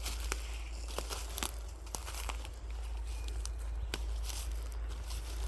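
Footsteps crunching and rustling through dry forest leaf litter, with irregular sharp crackles.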